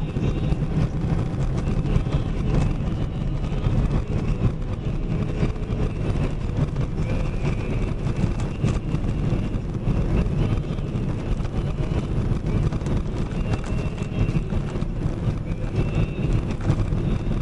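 Box truck on the move: a steady low rumble of engine and road noise.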